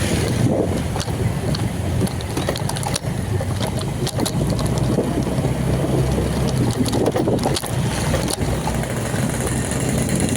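A vehicle running while moving, with a steady low engine hum and wind buffeting the microphone.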